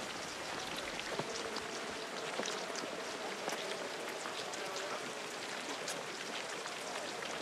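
Many cross-country skiers' poles and skis clicking and scraping on packed snow, a dense, steady patter of small sharp clicks.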